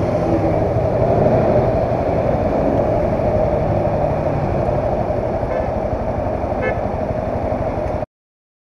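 Honda CBR300's single-cylinder engine running at idle and low speed as the motorcycle creeps forward, heard from a helmet-mounted camera. The sound is steady and cuts off suddenly about eight seconds in.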